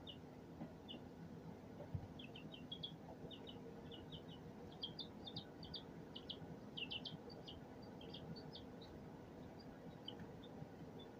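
Chicks peeping faintly: many short, high cheeps in scattered clusters, busiest in the middle.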